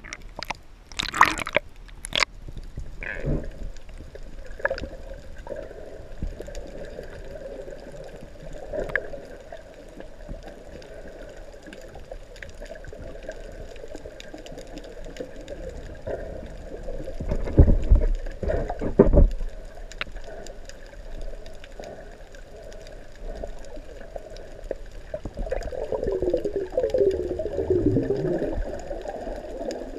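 Muffled water noise from an action camera held just under the sea's surface while snorkelling: sloshing and gurgling water, with a few sharp splashes in the first couple of seconds, heavier thumps of water a little past halfway, and falling gurgles near the end.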